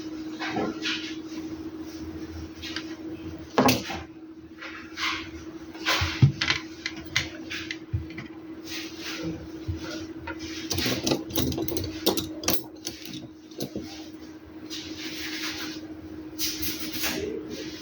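Irregular small clicks, taps and scrapes of objects being handled on a work surface, over a steady low hum.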